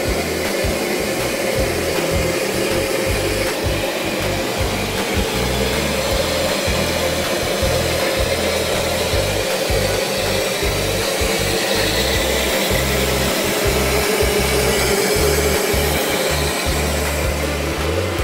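Shay geared steam locomotive No. 15 moving slowly past at close range: a steady hiss of steam over a low rumble, with no distinct chuffing beat.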